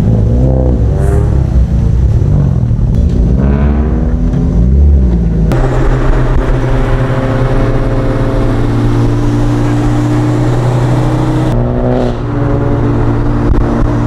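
Car engines revving up and down as the cars move off, then one engine pulling at a steady pitch, which briefly drops and climbs again near the end.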